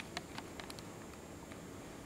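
A few faint, light ticks in the first second over a low room hush: a cat's claws and paws on a hard floor.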